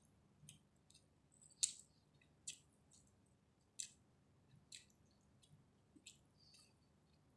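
Close-up mouth sounds of someone chewing chicken biryani: a series of sharp, wet smacks and clicks, irregular, about one a second, the loudest about one and a half seconds in.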